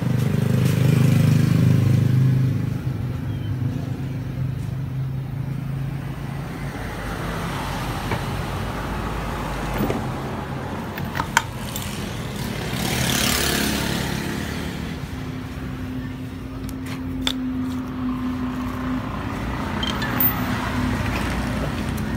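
A motor vehicle engine running steadily, with a swell of noise a little past halfway through and a few sharp clicks.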